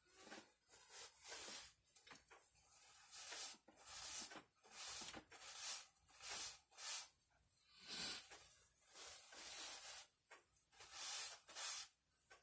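Paper napkins rustling and crinkling as they are handled and folded, in a run of short, irregular bursts.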